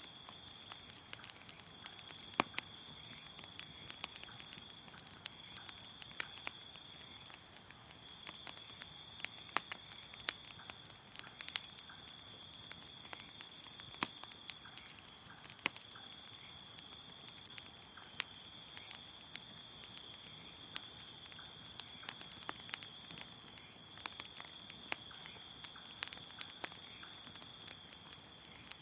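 Crickets chirping steadily in a high, continuous trill over a crackling bonfire, whose sharp pops and snaps come irregularly, about once or twice a second.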